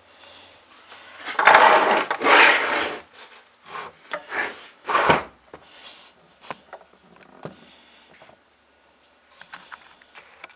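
Rubbing and scraping from hands working on a chainsaw on a workbench while forcing a new fuel line into the tank. A loud stretch of scraping lasts about two seconds near the start, shorter scrapes follow around four and five seconds in, then only small taps and clicks.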